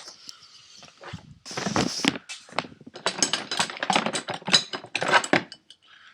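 Metal hand tools clinking and scraping against metal, with a quick run of clicks and knocks starting about a second and a half in, as a wrench is put to the gas line fitting.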